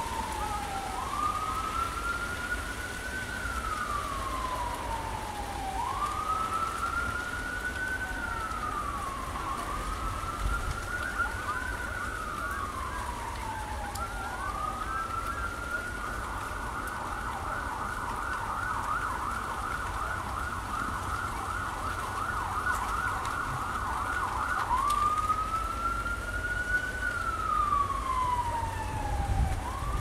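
Emergency vehicle siren wailing, its pitch rising and falling slowly every few seconds. Past the middle it switches for several seconds to a rapid yelp, then goes back to the slow wail. Wind noise on the microphone lies underneath.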